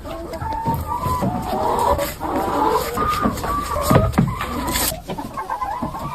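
Several chickens clucking, with many short calls overlapping.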